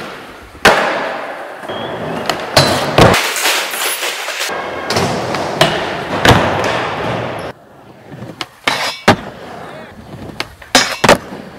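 Skateboard wheels rolling over ramps, broken by sharp clacks of the board popping and landing several times. It drops quieter about two-thirds of the way through, then more sharp clacks come near the end.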